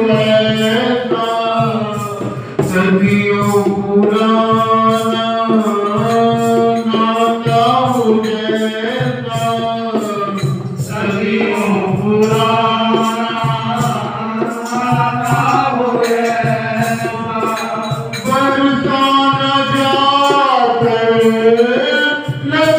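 A man singing a Hindi devotional bhajan to Radha and Krishna into a microphone. He holds long notes that slide up and down in pitch, with only short breaks for breath.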